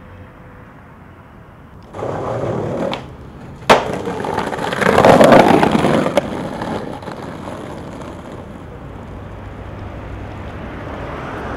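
Skateboard wheels rolling on rough pavement, with one sharp clack of the board about four seconds in. Louder rolling follows, with a smaller click near six seconds, and then it fades away.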